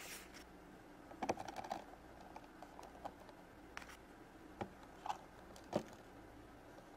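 Small plastic Shopkins figures clicking and tapping against the plastic shelves of a toy vending machine as they are set in place: a quick run of clicks a little over a second in, then single taps every half-second to second.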